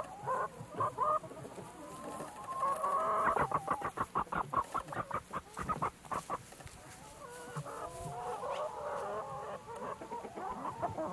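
Chickens clucking: a few short calls, then a fast run of clucks in the middle, about five a second, then several birds calling over one another near the end.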